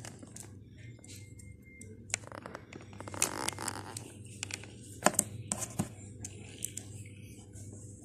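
Small plastic windmill blade pieces of a toy solar kit being handled and fitted together: scattered plastic clicks and taps with some rustling, the sharpest clicks about five to six seconds in.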